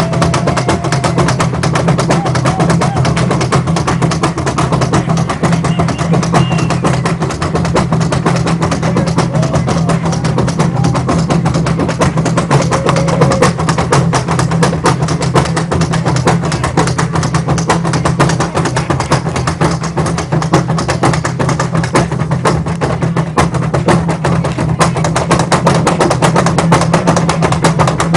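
Afro-Paraguayan Kamba Cuá drum ensemble playing a fast, continuous beat on large hand drums, with no break.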